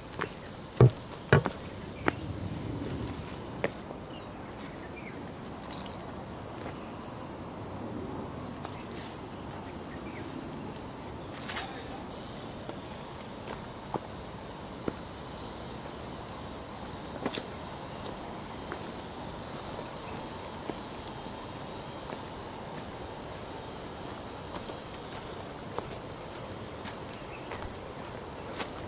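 A steady, high-pitched chorus of insects that grows louder about halfway through, with footsteps on a dirt and stone path; a few sharp steps near the start are the loudest sounds.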